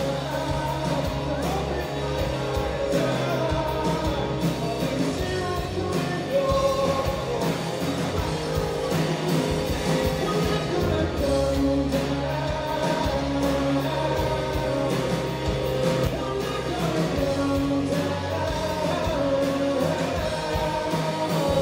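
Live rock band playing, with a male lead vocalist singing over electric guitar, bass and drums.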